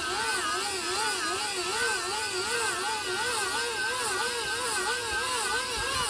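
Vacuum-cleaner universal motor whining with a rasp from its brushes as a bicycle wheel spins it as a generator. The pitch rises and falls about once a second with the uneven turning.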